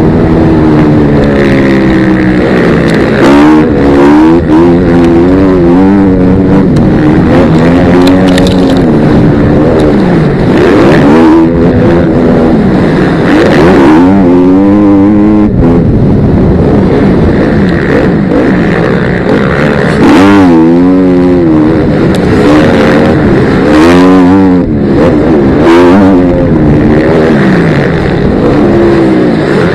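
Motocross dirt bike engine heard loud and close from on board, revving hard and falling back over and over as the rider works the throttle and gears through the track's straights and turns.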